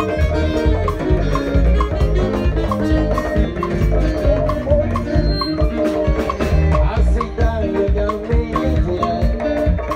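Live band playing up-tempo gospel music: strong bass and drums with a steady tapping beat, keyboard notes on top.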